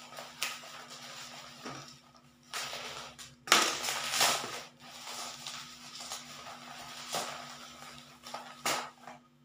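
Bubble-wrap and plastic packaging being handled and pulled open by hand: irregular crinkling and rustling with sharp crackles, loudest in a burst about three and a half seconds in.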